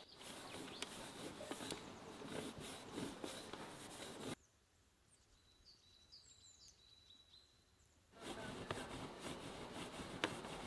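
Metal box grater rasping as a firm block of dough is rubbed down it by hand, in quick repeated strokes. The grating stops abruptly a little over four seconds in, leaving near quiet with a faint bird chirp, and starts again about eight seconds in.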